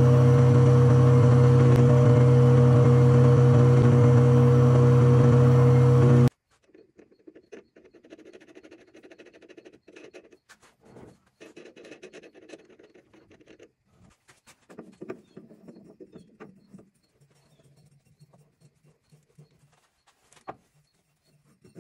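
Metal lathe running, its spindle turning a threaded steel shaft: a steady humming drone that stops abruptly about six seconds in. After that come only faint clicks and scrapes of handling as a nut and a diamond grinding cup are threaded onto the shaft by hand.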